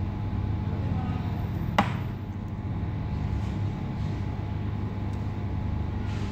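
Steady low mechanical hum in the background, with one sharp click about two seconds in.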